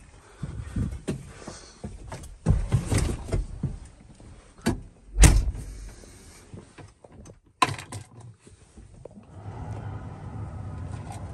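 Clunks and knocks of someone climbing into a Deutz-Fahr tractor cab, with a heavy thump about five seconds in. About nine seconds in, the tractor's engine comes on and runs with a steady low hum.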